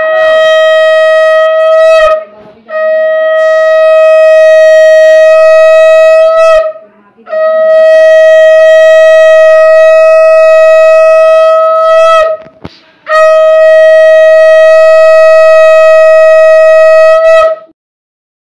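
Conch shell (shankha) blown in four long steady blasts on one pitch, each dipping slightly in pitch as it ends; the first blast is shorter. This is the auspicious conch sounded during a Bengali blessing ritual.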